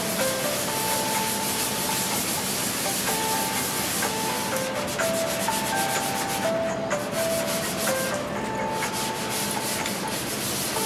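Hand sanding the painted sheet-metal top of an old cabinet with a sanding block and 120-grit sandpaper: a steady back-and-forth rasp of rubbing strokes, which stand out more plainly from about halfway through.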